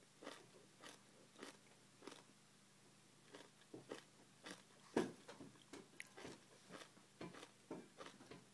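Near silence broken by faint, irregular clicks and crunches, about one or two a second, the loudest about five seconds in.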